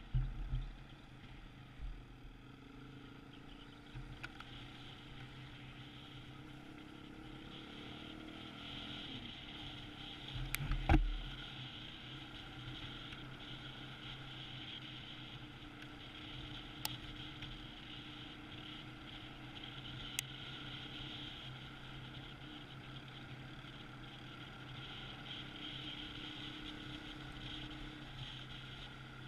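Single-cylinder dual-sport motorcycle engine running steadily under way, with wind noise over it, heard from the bike itself. A loud thump about eleven seconds in, and a couple of faint clicks later.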